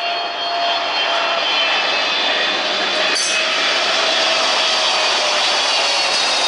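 Boeing 777-300ER's GE90-115B turbofan engines running on final approach as the airliner passes close. The sound grows louder over the first second, then holds steady, with a whine that slides slightly lower later on.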